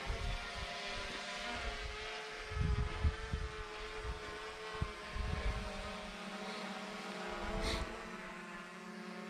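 Small camera drone hovering: a steady whine of several propeller tones at once, with irregular low rumbles underneath.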